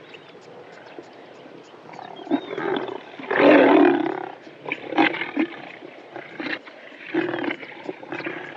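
Well-fed lions growling and groaning. It is quiet at first, then a growl builds about two seconds in; the loudest and longest growl comes about three and a half seconds in, followed by several shorter growls.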